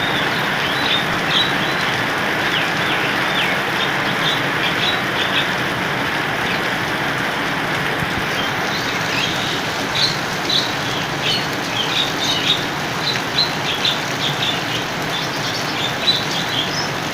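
Heavy rain falling steadily. Irregular short, high chirps sound over it, coming thickest in the second half.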